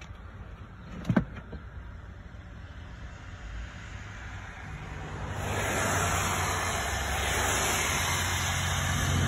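A car's engine and road noise swell up about halfway through and stay loud, after a single short knock about a second in.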